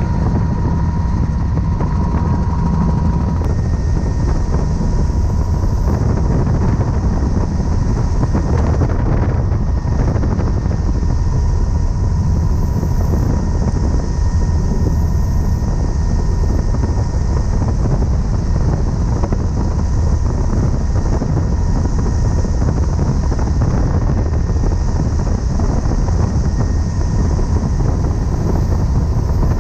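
Helicopter in flight, heard from on board: steady rotor and engine noise with a deep thrum and a faint steady whine.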